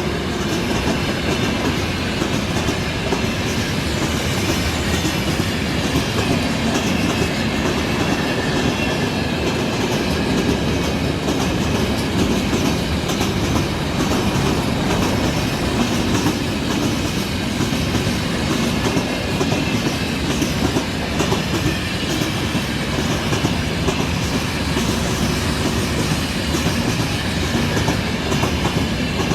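Train cars rolling past at speed: a steady rumble with a regular clickety-clack of the wheels over the rail joints.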